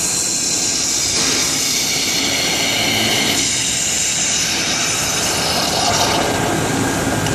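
Oxygen lance burning through a steel shaft: a loud, steady hiss of the oxygen jet, with molten steel spitting from the hole.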